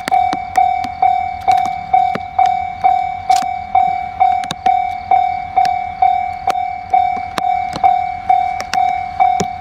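Railway level-crossing warning bell ringing steadily: one repeated electronic clang, a little more than twice a second.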